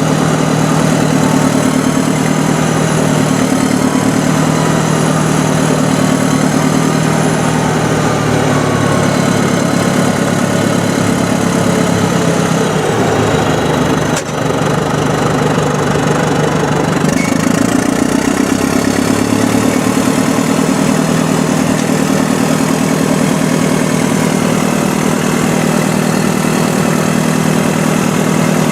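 Heavy diesel engines of Caterpillar earthmoving machines, a DW20 scraper and a D7E bulldozer, running loud and steady while moving dirt. There is a brief dip about halfway through, and the engine note changes a few seconds later.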